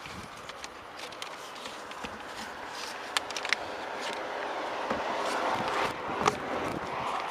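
Outdoor ambience: footstep-like clicks over a rushing noise that swells steadily louder over several seconds.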